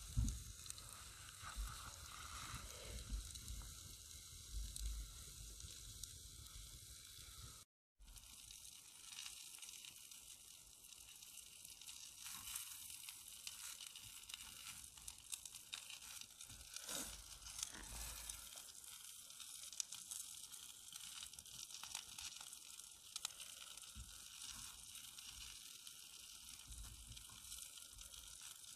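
Onions and sausages sizzling in a frying pan over a campfire, a steady crackling hiss. The sound cuts out for a moment about eight seconds in. The sizzle then carries on faintly under soft scraping and tearing as a bread roll is sliced with a knife and pulled apart.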